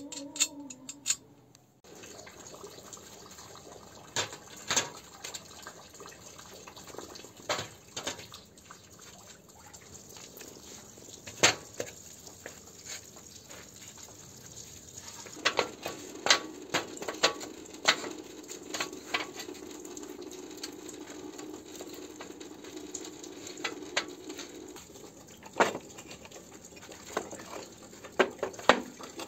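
Rough stone blocks being set down one at a time on a steel frame and gritty ground: irregular sharp knocks and clacks over a background of scraping and shuffling.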